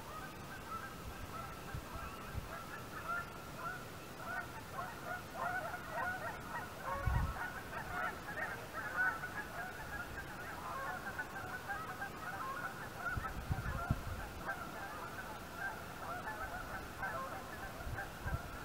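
A flock of geese honking across the lake, many short overlapping calls with no break. Wind gusts buffet the microphone about a third of the way in and again past the middle.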